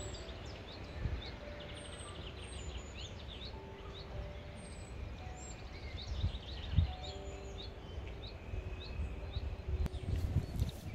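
Several songbirds chirping and singing at once, many short high calls throughout, over a low gusty rumble that grows stronger in the second half, with a sharp click near the end.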